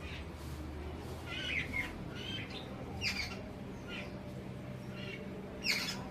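Jungle babblers giving short, harsh squawking calls, about five in a row, the loudest near the end, over a low steady hum.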